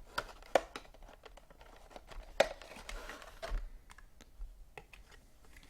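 Packaging being handled by hand: scattered clicks and light knocks with some crinkling and rustling. There is a sharper tap about half a second in and another about two and a half seconds in.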